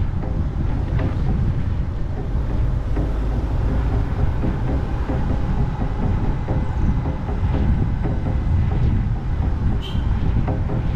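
Open-top Moke car driving along: a steady, loud low rumble of engine and road noise, with wind across the roof-mounted camera's microphone.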